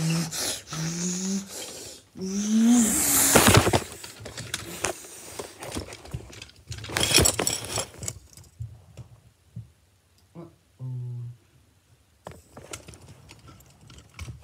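A child making short wordless sliding vocal noises during toy play, broken by loud rustling and handling bursts about two to four seconds in and again about seven seconds in, as the phone camera is knocked or covered; quieter clicks and one short hum follow.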